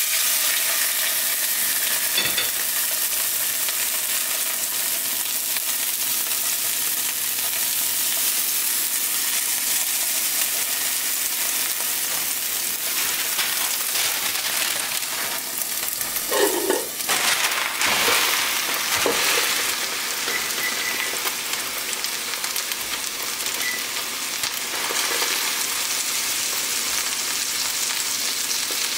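Red snapper fillet searing in hot oil in a skillet: a steady sizzling hiss, briefly louder a few times a little past the middle.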